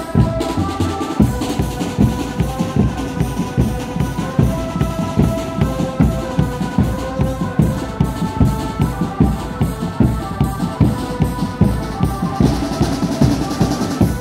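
Live drumband music: bass drums and snare-style drums beating a fast, steady rhythm, with a melody of held notes over them.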